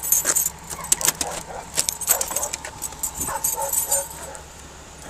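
Clattering and jangling handling noise on a police body-worn camera microphone as the officer moves, with a few short pitched calls in the background about three seconds in.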